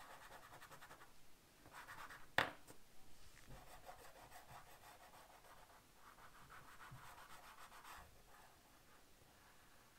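Chalk pastel stick scratching across drawing paper in quick back-and-forth colouring strokes, faint, with one sharp tap about two and a half seconds in.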